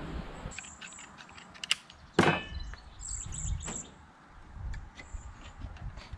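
Clicks and taps of a formed sheet-metal Z-channel trim piece being handled and pressed into place along the roof edge, with one sharp ringing metal click about two seconds in. Small birds chirp briefly in the background.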